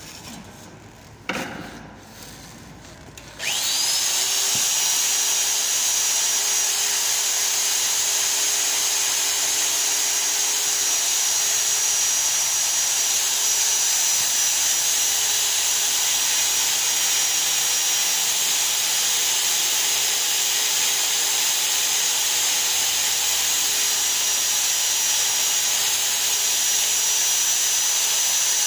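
Chain-mounted electric pipe hole-cutting drill on a steel fire-sprinkler pipe: after a click and some handling knocks it switches on about three seconds in with a quick rising whine, then runs steadily as the cutter bores into the pipe.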